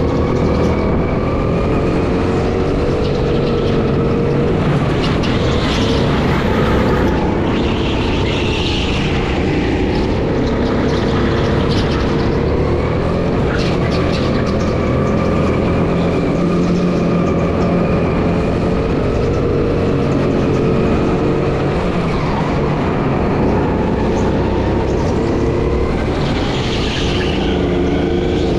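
Go-kart engine running continuously under load, its pitch rising and falling repeatedly as the kart speeds up and slows.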